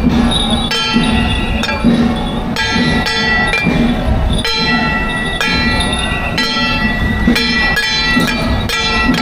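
Temple festival percussion: gongs and cymbals struck about once or twice a second, each hit ringing on in bright metallic tones, the processional beat that accompanies a guardian troupe's dance.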